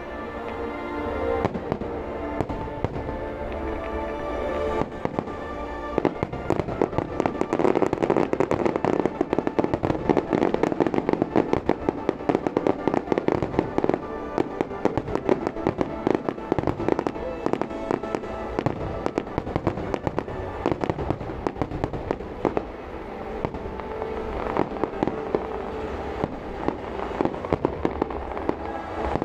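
Fireworks display: a dense, continuous barrage of shell bursts and crackling, heaviest from about six seconds in. Music plays underneath.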